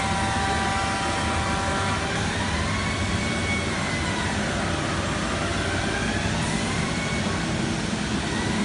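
Uniteam 5-axis CNC machining centre running: a steady machine noise with a motor whine that holds a fixed pitch for about two seconds, then rises and falls slowly as the machine moves.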